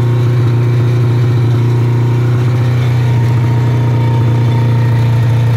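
Ski-Doo MX Z Rev snowmobile's Rotax two-stroke engine idling steadily, a low even drone with no revving.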